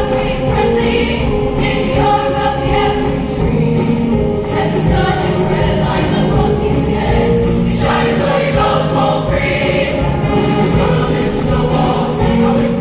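A choir singing with instrumental accompaniment, in steady, loud music.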